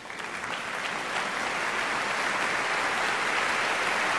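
Audience applauding, a steady dense clapping that fades in over the first second or so.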